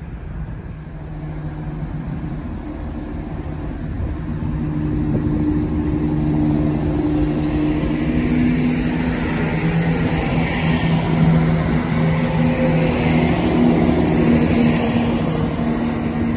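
CrossCountry Class 170 Turbostar diesel multiple unit running past under power. Its engine drone grows louder from about four seconds in and holds steady, with a hiss of wheels on rail building near the end.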